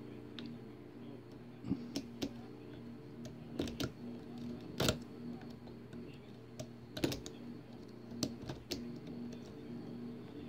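Irregular small metallic clicks of a pick and tension wrench working the pin stack of a Winkhaus euro cylinder lock, some in quick pairs, the loudest about halfway through. A steady low hum runs underneath.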